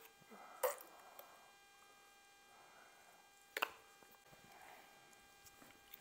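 Plastic ketchup squeeze bottle squeezed upside down over fries: two short squirts about three seconds apart.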